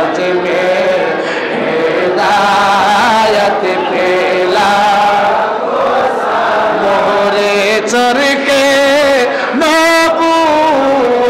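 Men chanting a devotional salam to the Prophet together, led by one voice on a microphone, in long drawn-out notes. Near the end the melody climbs to higher held notes.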